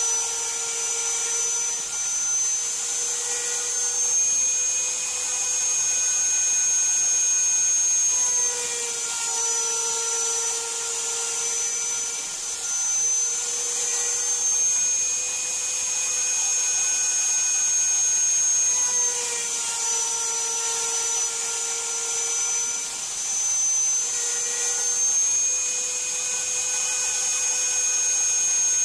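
The router spindle of an MPCNC mill cutting a pocket in Iroko hardwood with a 1/4-inch end mill: a steady high whine with a hiss of cutting. Its pitch steps slightly down and back up every few seconds as the cutter moves along the pass.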